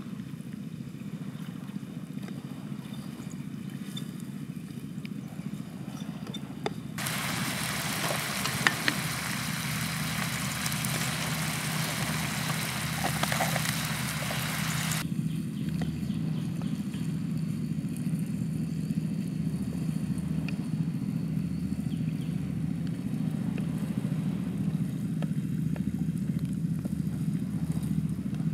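Squid rings frying in oil in a pan, sizzling loudly. The sizzle starts suddenly about seven seconds in and stops about eight seconds later, over a steady low rumble.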